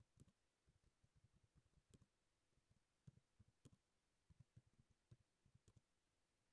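Near silence with faint, irregular computer keyboard keystrokes as text is typed, a few sharp clicks among soft low taps.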